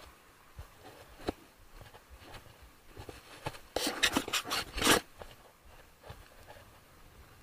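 A quick run of rubbing, scraping strokes close to the microphone, about four seconds in and lasting a little over a second, with a few faint clicks before it.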